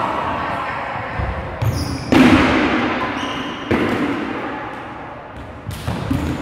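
Rubber dodgeballs smacking and bouncing on a hardwood gym floor: a few sharp slaps, the loudest about two seconds in and two more near the end, each trailing off in the big hall's echo.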